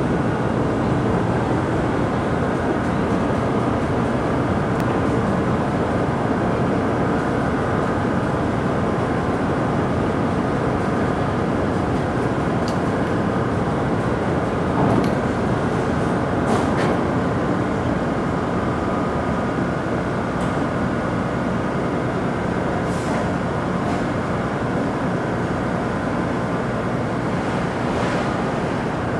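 Car ferry's engines and machinery running steadily while berthing, a constant rumble with a few brief faint knocks.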